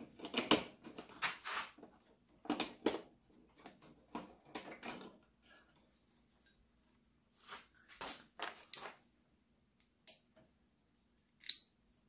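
Small hand tools and fingers clicking, scraping and rattling against a toaster oven's door micro switch, its wire terminals and the sheet-metal case while the switch is being taken apart. The clicks come in irregular clusters, with a quieter gap in the middle and a few single ticks near the end.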